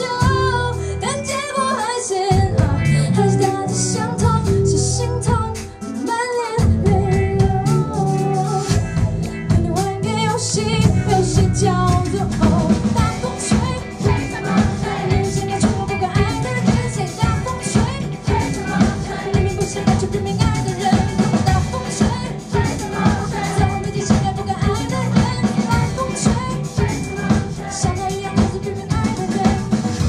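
Live band performance: a female vocalist sings a melody into a microphone over a band, with a drum kit keeping a steady beat from about twelve seconds in. Heard from well back in the audience.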